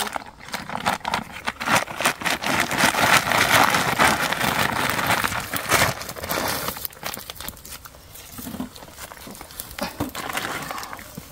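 Plastic sack rustling and crinkling as snails are dropped in and the bag is lifted and twisted shut, with small clicks among the rustle. It is loudest for the first six or seven seconds, then dies down to a quieter rustle.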